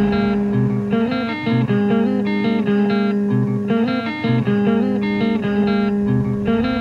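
Music: guitar playing a slowly repeating picked figure over held low notes.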